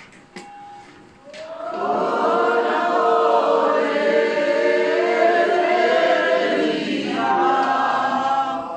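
A crowd of pilgrims singing a religious chant together, many voices in unison. The singing swells in about a second and a half in, holds loud, and fades near the end.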